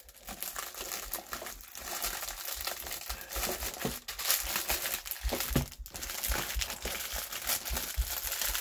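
Plastic bags of diamond-painting drills crinkling and rustling as they are handled and packed back into a cardboard box, with a few low knocks in the second half.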